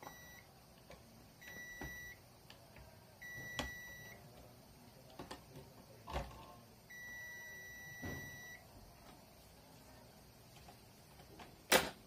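A Zotek digital multimeter's continuity buzzer beeps four times with a steady high tone, from a short chirp to a long beep of nearly two seconds, as test probes touch points inside a water heater. Light clicks of the probe tips sound in between, and a sharper knock comes near the end.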